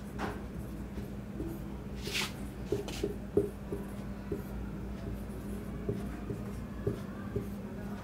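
Marker pen writing on a whiteboard: short squeaks and taps of the felt tip as the letters are drawn, with one longer, higher squeak about two seconds in. A steady low hum sits underneath.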